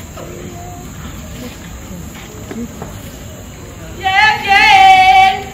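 A woman's voice holds one high, wavering note for about a second and a half, starting about four seconds in, after a few seconds of faint, indistinct stage sound.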